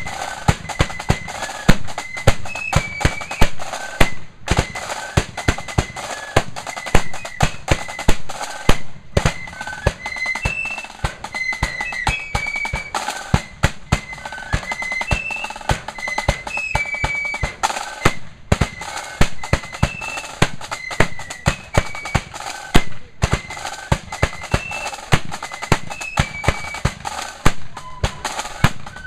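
Marching flute band playing a march: flutes carry a quick melody over steady snare drum beats and a bass drum.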